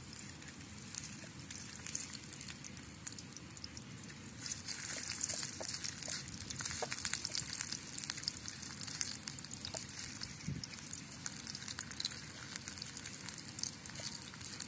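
Food frying in hot oil in a wok over a wood fire: a steady sizzle with scattered small pops, growing louder about four and a half seconds in.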